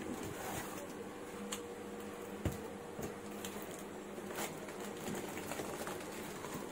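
Hands handling a spiral-bound sketchbook and a plastic-wrapped paper parcel: scattered rustles and crinkles of plastic and paper packaging, with one knock about two and a half seconds in. A faint steady hum runs underneath.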